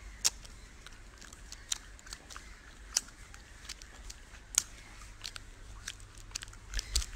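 Quiet room tone with a low hum and a handful of scattered sharp clicks, close to the microphone.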